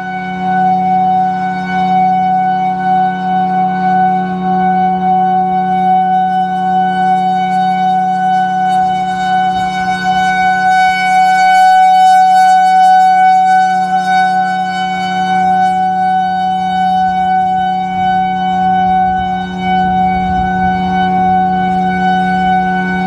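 Federal Signal Thunderbolt 1000A outdoor warning siren sounding one steady tone at full pitch. Its rotating horn makes the sound swell, loudest about halfway through as the horn faces the listener, and ease off as it turns away.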